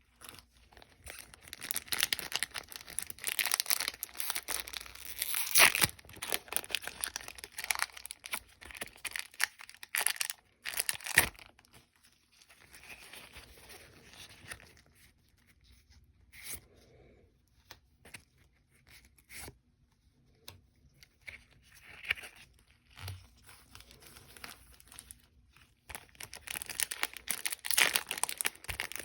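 Pokémon Trick or Trade booster pack wrappers being torn open and crinkled, loudest in the first ten seconds or so and again near the end, with quieter rustling and a few sharp clicks in between.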